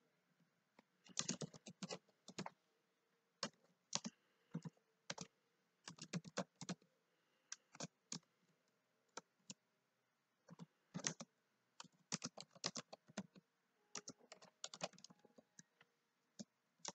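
Computer keyboard typing: sharp keystroke clicks in short irregular bursts, with brief pauses between them.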